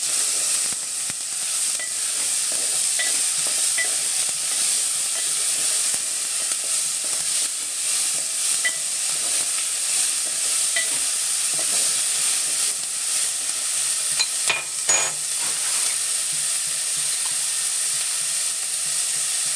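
Chopped vegetables sizzling as they are stir-fried in a little hot oil, with a spatula scraping and tapping against the pan. There are a few sharper knocks about fifteen seconds in.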